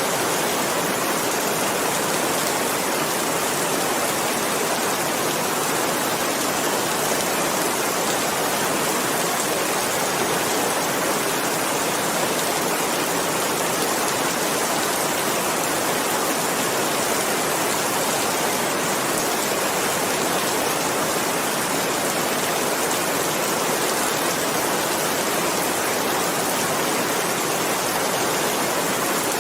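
Steady rain, a dense and even hiss of falling drops with no change in intensity.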